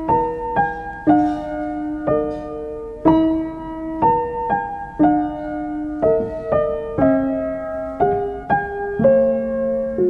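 Background music: a slow, gentle piano melody, a note or chord struck about twice a second, each ringing and fading.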